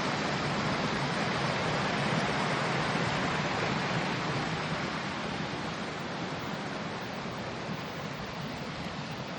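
Running water: a steady rushing noise that grows slowly fainter from about four seconds in.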